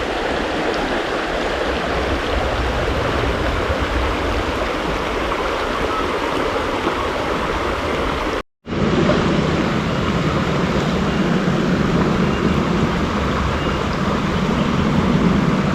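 Shallow stream running over a rocky riffle: a steady rush of flowing water. It cuts out for a moment about halfway through, then carries on slightly fuller.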